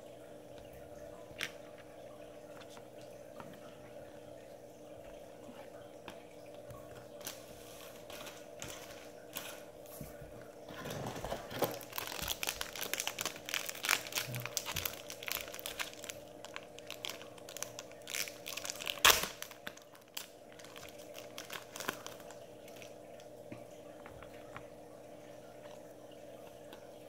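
Trading-card pack wrapper crinkling as it is torn open and handled: dense crackling starting about ten seconds in and lasting several seconds, with one sharp snap near its end, over a steady hum.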